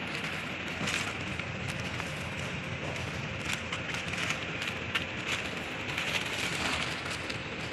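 Running machinery in a packing workshop: a steady hiss with irregular crackling clicks throughout.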